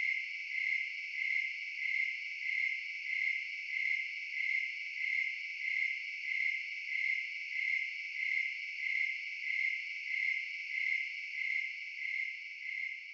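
Crickets chirping in a steady, even rhythm of about one and a half high chirps a second, starting to fade near the end.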